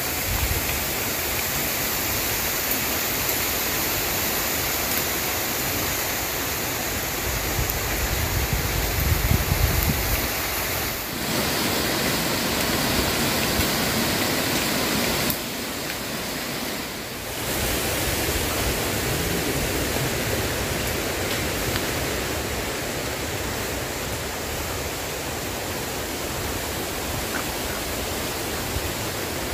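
Strong wind rushing through forest treetops, a steady hiss of tossing leaves, with gusts buffeting the microphone through the first ten seconds. The sound changes abruptly about 11 and 15 seconds in.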